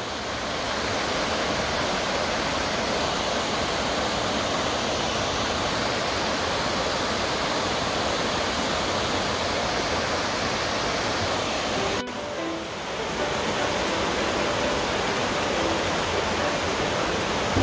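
Rushing water of a mountain creek tumbling over boulders in small cascades below a waterfall: a steady, even rush, with a brief dip about twelve seconds in.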